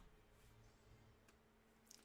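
Near silence: room tone with a faint steady hum and two small faint ticks.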